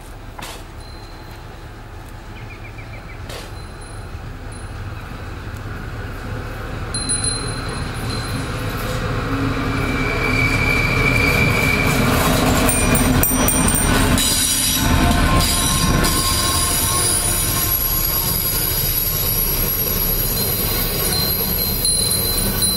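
A short BLS work train with a yellow-green service locomotive approaching and passing on curved track. Its rumble grows louder toward the middle, and from about halfway on the wheels squeal in high, thin tones on the curve.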